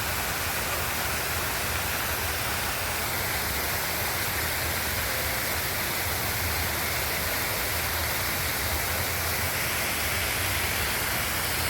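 Steady, even rush of running water, like a waterfall in an animal enclosure, with a low rumble beneath it.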